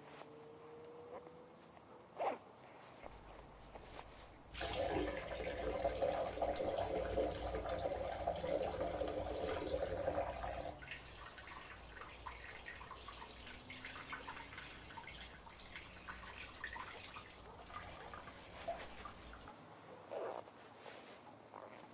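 A stream of urine pouring into a container for about six seconds, starting between four and five seconds in, then stopping and giving way to faint drips and trickles.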